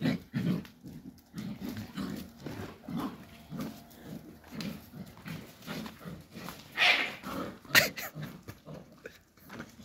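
Dogs growling and grunting in short low bursts while play-fighting, with a louder, harsher outburst about seven seconds in and a sharp click just after.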